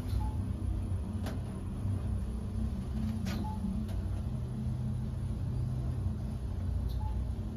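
Emch elevator car travelling down: a steady low hum and rumble of the moving car, with a few faint clicks and three short faint beeps about three seconds apart.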